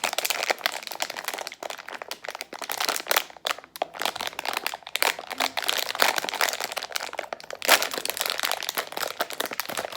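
Plastic wrapping of a blind-packaged toy figure crinkling and crackling as it is handled and unwrapped by hand, to reveal which figure is inside.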